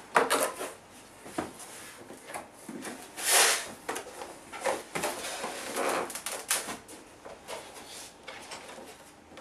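Cardboard box being opened by hand: flaps scraping and folding back, loudest about three and a half seconds in, then papers rustling as the leaflets on top inside are handled.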